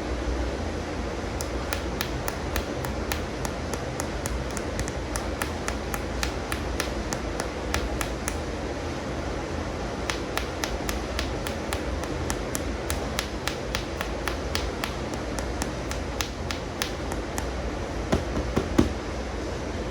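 Light, sharp taps on plastic animal toys, several a second, over a steady low rushing noise, with a few louder knocks near the end.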